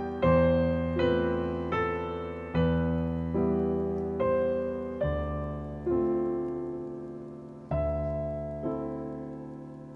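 Background piano music: a slow melody of single notes and chords, each struck and left to fade, about one a second.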